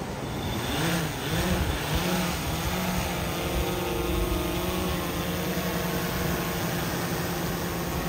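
SwellPro quadcopter fishing drone's motors and propellers spinning up for takeoff. The pitch wavers and rises about a second in as it lifts off, then holds a steady hum as it climbs with the bait line hanging beneath it.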